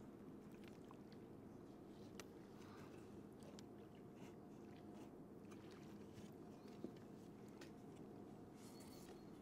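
Near silence: a faint steady low hush, with a few soft clicks and taps of a metal saw blade being fitted into the slots of a wooden bowsaw frame.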